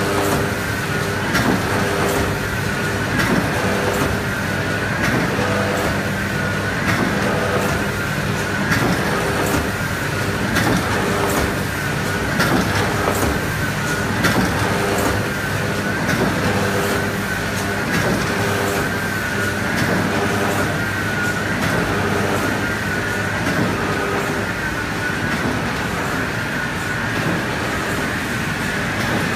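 Industrial screen printing press running: a steady mechanical clatter that swells about every two seconds as the machine cycles, over a steady high whine.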